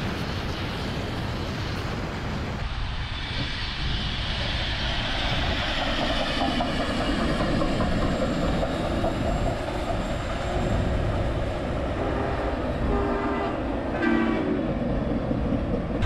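Union Pacific Big Boy 4014 steam train running by with a steady rumble, and a few short whistle blasts near the end.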